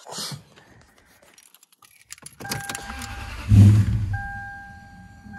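Lexus LS on a jump starter: keys rattle in the ignition and a steady warning chime sounds. About three and a half seconds in, the starter gives one short, heavy crank that fades out without the engine catching, and the chime carries on afterwards.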